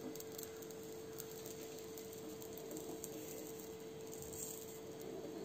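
Pancake batter cooking quietly in a nonstick frying pan: a faint hiss under a steady hum, with a few light ticks.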